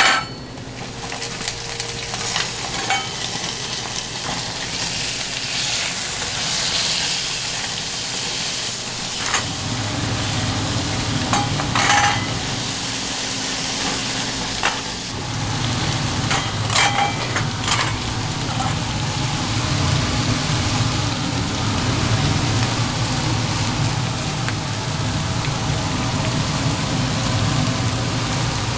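Thick 200 g burger patties sizzling on a hot grill, with a few sharp metal clicks of utensils against it. A low rumble comes in about ten seconds in and grows stronger a few seconds later.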